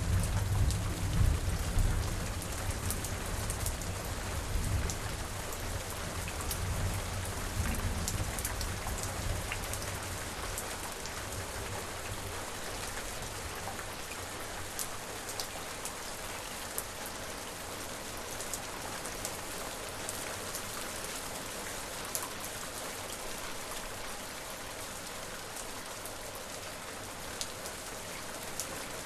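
Steady rain falling, with the sharp ticks of individual drops hitting a surface. A low rumble at the start, the tail of a roll of thunder, dies away over the first eight seconds or so.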